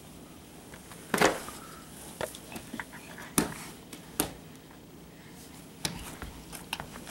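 A few separate sharp slaps and knocks, irregularly spaced: a baby's hands slapping the hardwood floor as he crawls.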